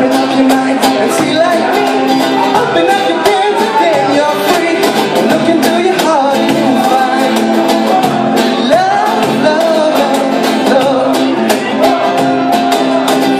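Music: a singing voice over guitar with a steady beat.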